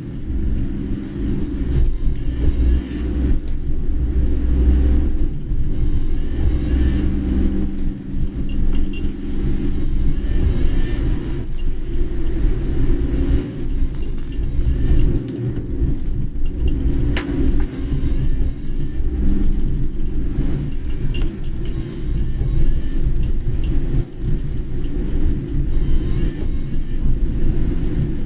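A car driving, heard from inside the cabin: a steady low rumble of engine and road noise. A brief sharp click comes about 17 seconds in.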